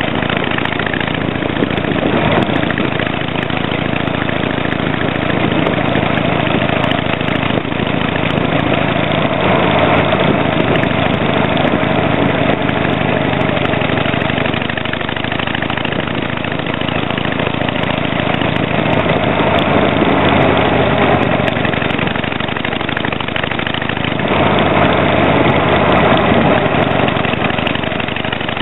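Harley-Davidson Sportster 883 Hugger's air-cooled V-twin running under way through tapered mufflers with silencer inserts fitted, rising and falling with the throttle, with louder spells about ten, twenty and twenty-five seconds in.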